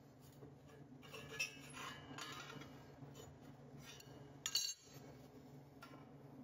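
Steel adjustable wrench clinking against the sheet-steel pieces of a fabricated 9-inch axle housing as a tab is levered by hand, with a louder metal clatter about four and a half seconds in as the wrench is put down. A steady low hum runs underneath.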